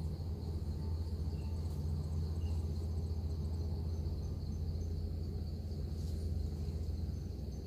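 Insects chirring steadily in a fast, even pulse, over a low steady rumble.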